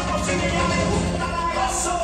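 Recorded dance song playing over a stage sound system.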